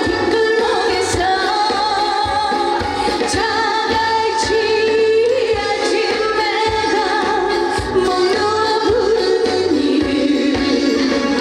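A woman singing a trot song live over an amplified backing track with a steady drum beat.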